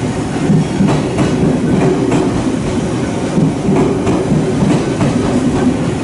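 Train running along the track with a steady rumble, its wheels clacking over rail joints at uneven intervals.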